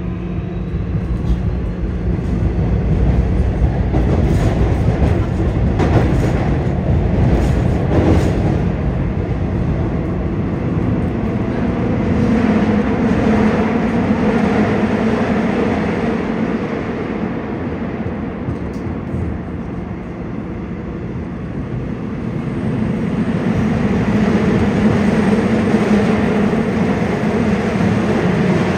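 Seoul Subway Line 6 train with Mitsubishi IGBT-VVVF traction equipment, heard from inside the car as it runs between stations: a steady rumble of wheels on rail. A few sharp clicks come about five to eight seconds in, and a low hum swells about twelve seconds in and again near the end.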